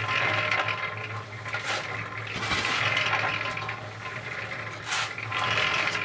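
Old concrete mixer running with a load in its turning drum: a steady low hum under the rushing, swelling and fading noise of wet concrete and gravel tumbling inside. A few sharp clicks and rattles come through on top.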